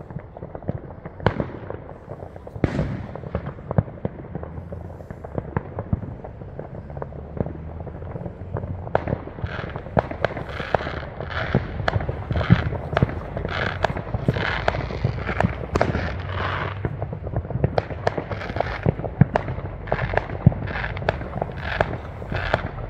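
Fireworks going off: a steady run of sharp bangs and pops with crackle between them. It grows denser and louder about nine seconds in.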